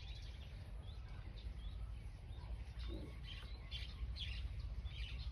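Small birds chirping, short high calls that come thicker in the second half, over a steady low rumble.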